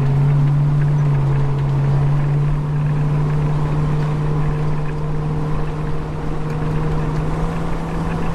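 Car engine droning steadily at road speed, heard from inside the cabin, its pitch slowly rising as the car gathers speed, over a low haze of road noise.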